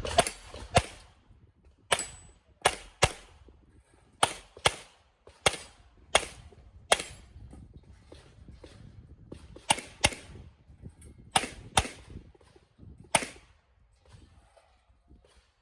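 Handgun shots fired in quick pairs with short pauses between, about sixteen loud shots in all, the last about thirteen seconds in: a competitor shooting a practical-shooting stage, double-tapping each target and moving between positions.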